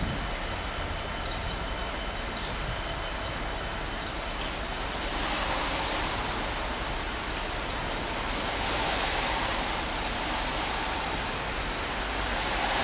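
Rain falling steadily, its hiss swelling a few times, over a low steady rumble.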